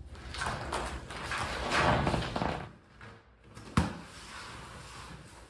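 A sliding, rustling noise for about two seconds, then a single sharp knock about a second later.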